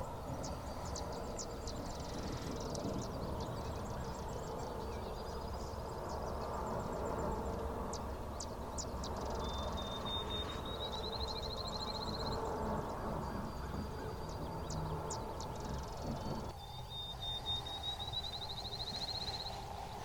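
Outdoor birdsong: a small songbird sings a rising, buzzy trill twice, about ten seconds in and again near the end, with scattered high chips from other birds over a steady low background noise.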